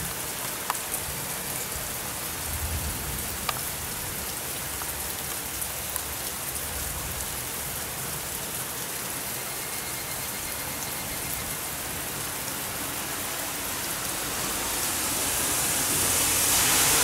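Heavy rain falling on a pond and the plants around it: a steady hiss with a few sharp ticks, growing louder in the last few seconds.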